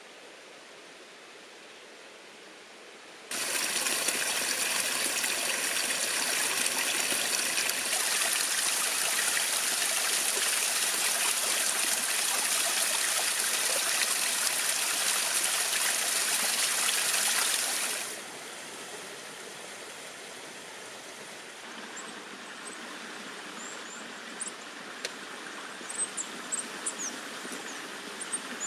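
Water running loudly and steadily, like a stream or a pouring flow. It starts abruptly a few seconds in and falls away about 18 seconds in to a softer rushing sound. A few short high chirps come near the end.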